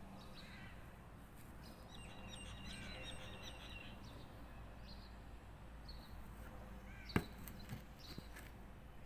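Birds chirping and calling in short repeated notes over a steady low hum, with one sharp knock about seven seconds in.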